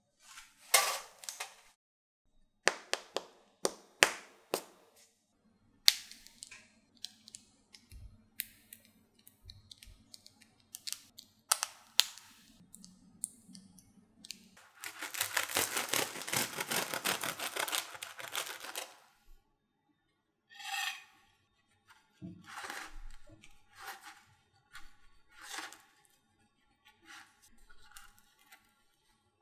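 Crusty baked bread rolls being handled: sharp clicks and taps against the hard crust and a metal cooling rack, a few seconds of dense crackling crunch about halfway through, then softer tearing as the roll is pulled open by hand.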